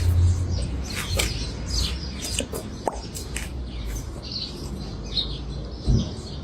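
Many short, high, bird-like chirps over a steady low rumble, with a low thump near the end.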